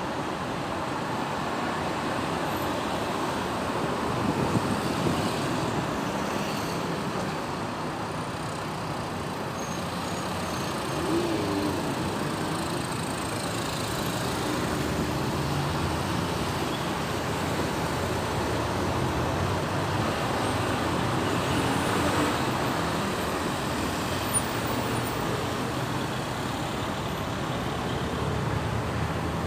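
City road traffic: a steady mix of vehicle engines and tyre noise, with a few brief wavering tones rising above it.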